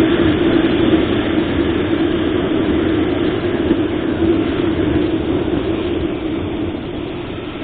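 Steady road noise of a motorcycle on the move: wind rushing over the microphone over the drone of the engine, easing slightly toward the end.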